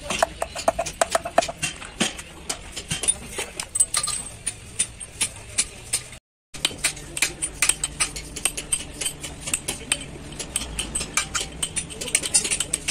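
Hand hammer knocking on the steel parts of a truck crown-and-pinion (differential) assembly as it is fitted back together: quick, repeated sharp metallic knocks, several a second, with a brief break about six seconds in.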